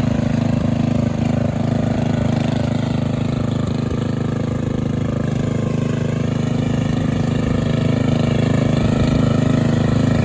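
Off-road vehicle engine running steadily, its pitch rising a little about two-thirds of the way through.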